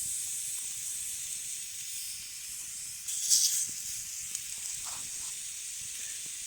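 Marinated pork sizzling on a fire-heated rock: a steady high hiss, with a brief louder spurt a little over three seconds in.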